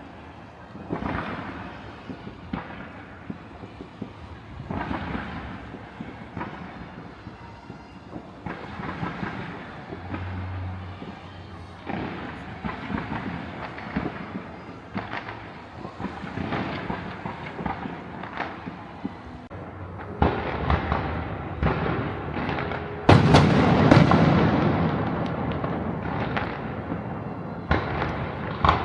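Fireworks going off, many overlapping bangs and crackles. The bursts grow denser and louder about two-thirds of the way through, peaking in a loud barrage.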